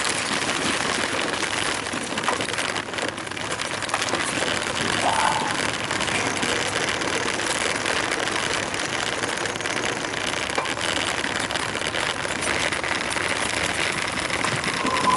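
Steady rushing noise of a bicycle being ridden along a road: wind across the microphone and tyre noise, with no marked changes.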